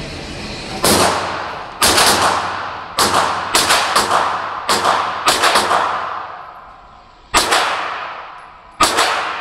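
9mm AR-9 pistol with a muzzle brake being fired: about fifteen sharp shots at an uneven pace, some single and some in quick runs of two or three. Each shot rings on in the echo of an indoor range booth.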